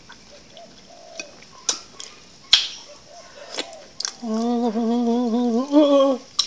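Wet, sticky mouth clicks and smacks as ambuyat, a gluey sago-starch paste, is sucked off a wooden spoon. About four seconds in comes a steady closed-mouth "mmm" hum that lasts about two seconds.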